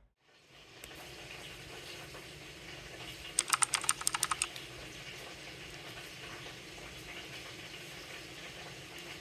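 A quick run of about a dozen sharp clicks, roughly ten a second and lasting about a second, over a steady background hiss.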